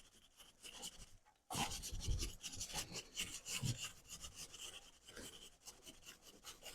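Cleaning brush scrubbing a WD-40-soaked motorcycle drive chain in quick back-and-forth strokes, starting about a second and a half in and growing fainter toward the end.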